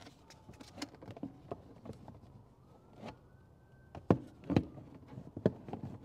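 Hard plastic battery-box lid knocking and clicking as it is pressed down and handled: a handful of sharp taps, the loudest a little after the middle. The lid does not close fully over the wiring inside.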